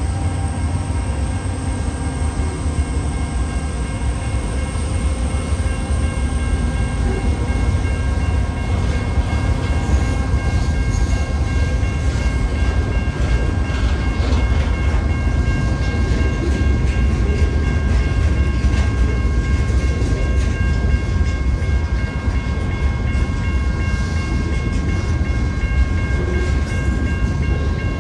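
Freight train passing with a steady heavy low rumble. From about six seconds in, several steady high tones hold over it.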